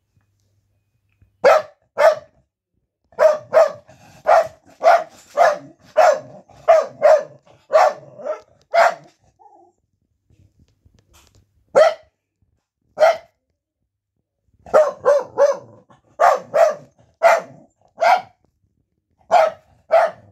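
A Welsh corgi barking repeatedly from inside a wire pet pen: about two dozen sharp barks, often in quick pairs, with a lull of a few seconds around the middle. It is alert barking at visitors.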